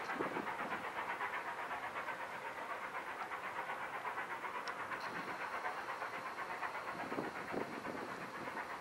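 Steam locomotive hauling a passenger train, its exhaust beating in a fast, even rhythm of about four chuffs a second.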